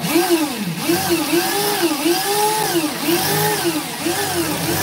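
A motor running with its pitch rising and falling over and over, a few swells a second.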